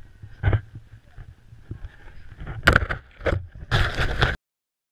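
Snowboard sliding and scraping over packed snow, with wind rushing on a GoPro's microphone. Several louder scraping bursts come in the second half, and the sound then cuts off abruptly just before the end.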